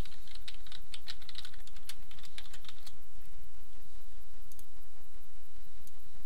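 Typing on a computer keyboard: a quick run of keystrokes for about three seconds, then a few isolated clicks, over a steady low hum.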